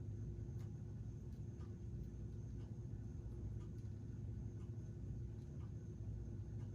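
Faint, irregular plastic clicking from a hand-cranked K'nex Zipper ride model turning on its rubber-band pulley, over a steady low hum.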